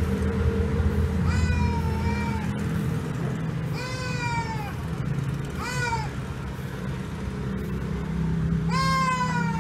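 Goat kid bleating four times, each call a wavering, downward-bending cry, over a low steady hum.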